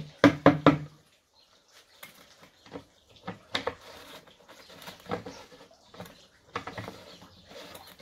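Plastic pipe knocking and scraping on a tiled floor as it is stood upright and handled: a quick cluster of three loud knocks in the first second, then scattered lighter taps.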